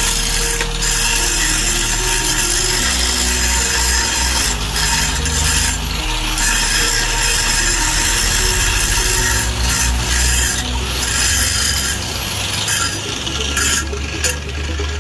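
Electric angle grinder running with its abrasive disc grinding steel: a steady motor whine with a harsh scraping grind, broken by a few short dips in the sound.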